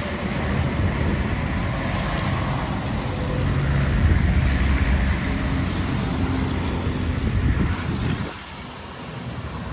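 Wind buffeting the microphone in a steady low rumble, which drops off suddenly about eight seconds in.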